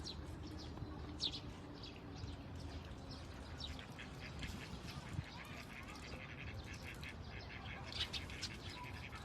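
Birds chirping: many short calls, scattered and overlapping, over a steady low rumble.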